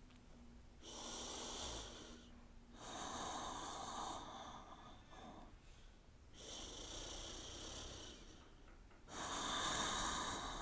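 A woman breathing slowly and audibly while holding a seated stretch: four long breaths in and out, each about two seconds, with short pauses between them.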